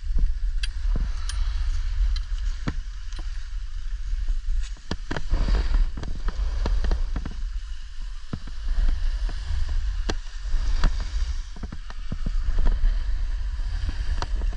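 Riding down a ski run: an edge hiss and scrape on snow that swells and fades with the turns, over a steady low wind rumble on the microphone, with scattered sharp clicks and knocks.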